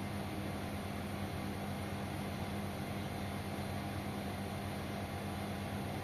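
Bosch Maxx 7 VarioPerfect front-loading washing machine running a cleaning cycle: a steady drone from its drum motor over an even hiss, with no pauses or changes.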